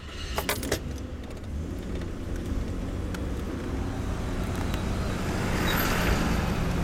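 Steady rumble of road traffic with tyre noise, growing a little louder as a vehicle passes about five to six seconds in. A few faint clicks come in the first second.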